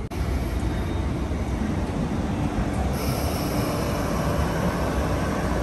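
Metro-Cammell electric multiple unit train moving along the platform, a steady rumble of wheels on track and running gear.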